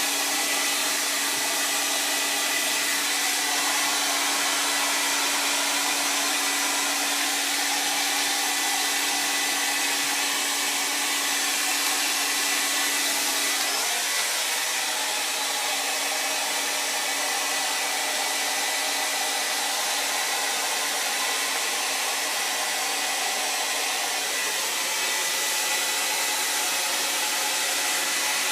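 Revlon hand-held hair dryer running steadily, blowing a loud, even rush of air, with a low steady hum that fades about halfway through.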